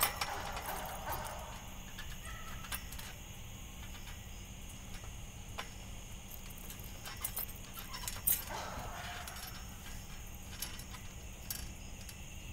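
Metal springs of a backyard trampoline creaking and jingling now and then as a person shifts, stands and walks on the mat, with a few scattered sharp clicks, the loudest about eight seconds in.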